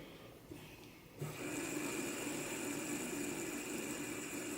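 A fidget spinner whirring on its bearing after a spin. It starts suddenly about a second in as a steady, even whir with a low hum and a high whine.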